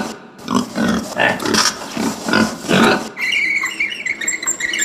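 Domestic pig grunting over and over, a short grunt every few tenths of a second for about three seconds, then fading to a faint, thinner sound.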